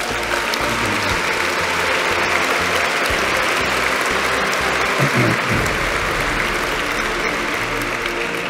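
Large crowd of guests applauding, a dense steady clapping that eases off near the end.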